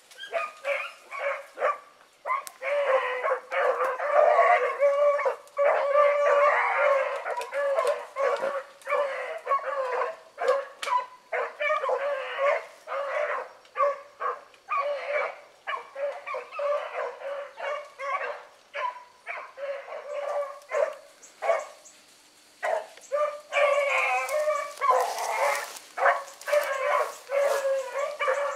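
A pack of rabbit-hunting dogs barking and baying in a rapid run of short, overlapping barks: the dogs have jumped a rabbit and are running its scent. The barking dies down briefly about three-quarters of the way through, then picks up again with several dogs at once.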